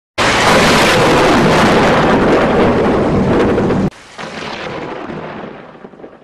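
Thunderstorm noise: a loud rumbling rush starts suddenly, drops abruptly to a softer rumble about four seconds in, and then fades away.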